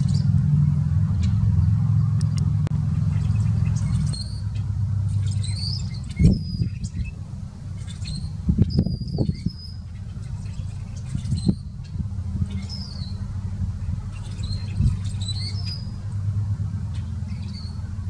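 Rusty blackbird calling with short, high, squeaky creaking notes in several bursts, over a steady low rumble. A few low thumps near the middle are the loudest sounds.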